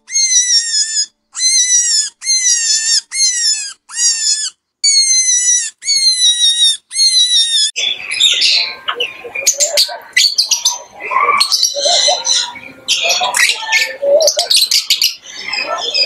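Guinea pigs wheeking: about ten shrill whistling squeals in quick succession, each sliding in pitch. About eight seconds in they give way to a flock of Fischer's lovebirds chattering with many sharp, overlapping chirps and squawks.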